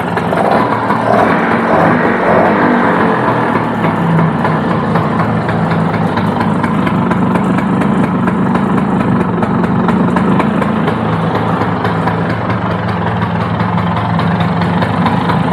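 A 1994 Bajaj Super 150's single-cylinder two-stroke engine runs steadily at idle on its first run after sitting for years, with the two-stroke note. The engine is still in need of a lot of adjustment.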